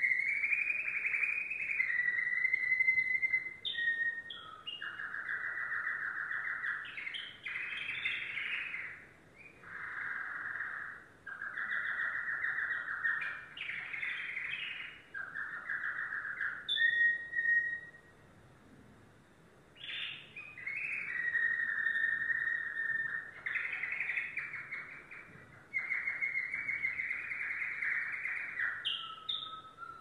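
Domestic canary singing: long phrases of rapid trills and rolls, broken by a pause of about two seconds a little past the middle.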